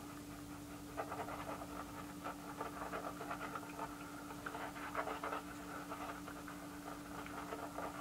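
Pure badger shaving brush swishing lather across a bearded face in repeated irregular strokes, starting about a second in, over a steady low hum.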